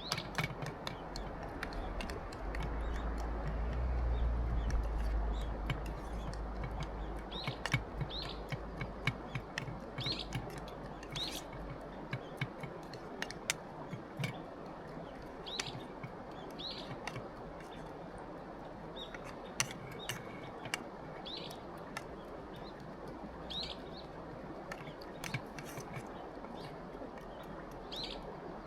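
A small bird calling: short high chirps, one every second or two, over a steady hiss, with scattered light clicks and a brief low rumble near the start.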